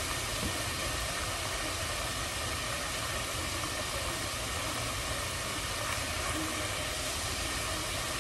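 Pieces of floured chuck steak deep-frying in a pot of hot oil: a steady, even sizzle.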